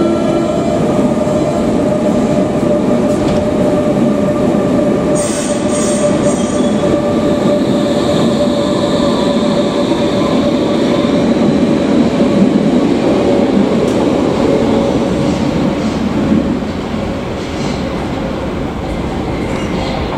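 Berlin U-Bahn IK-series small-profile train departing from an underground platform: its doors close, then it pulls away with a steady traction-motor tone, wheel noise and some wheel squeal.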